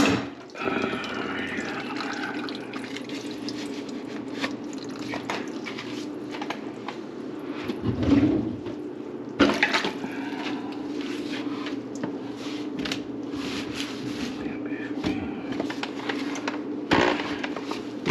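Water running and gurgling in a kitchen sink whose drain line is plugged with grease, with a few knocks, the loudest about nine to ten seconds in.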